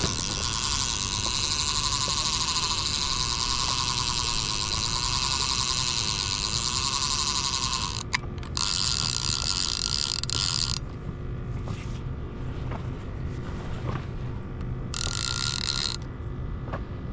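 Conventional fishing reel whirring as its spool turns, a steady high buzz that stops with a click about eight seconds in, then runs again for two short stretches. A low steady rumble of wind and boat noise sits underneath.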